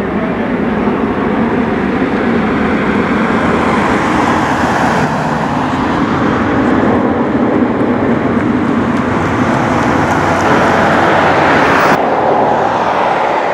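Loud, steady jet noise from a C-5M Galaxy's four turbofan engines as the transport climbs and banks away after takeoff. About 12 seconds in it cuts abruptly to the sound of other jets on the runway.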